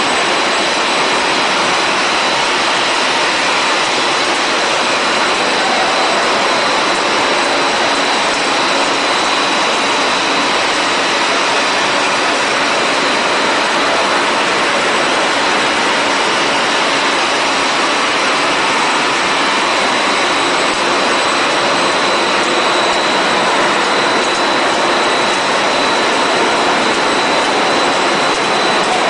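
Steady machinery din of a running PP/PS plastic sheet extrusion line, an even loud noise with a thin high whine held over it throughout.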